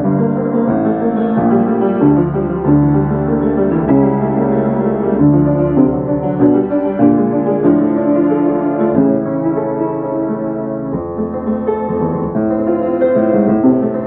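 Piano playing a classical piece, with a steady run of dense notes and chords.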